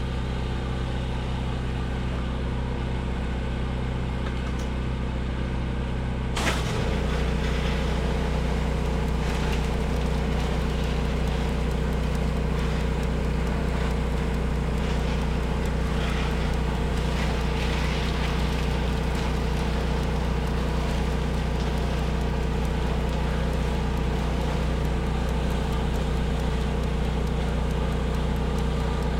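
Engine of the soft-wash spray rig running steadily. About six seconds in there is a click, its tone shifts and grows slightly louder, and it runs on steadily.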